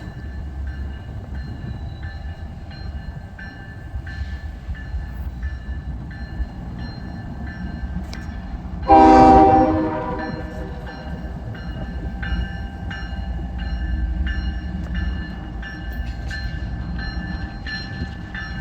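A train rumbling steadily, with a rhythmic ringing about twice a second. About halfway through a locomotive horn gives one short, loud blast.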